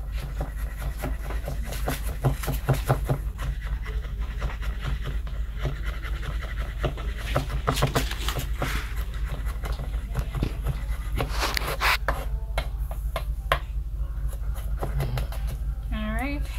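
Kitchen knife chopping and mincing on a cutting board in quick runs of sharp knocks, over a steady low hum.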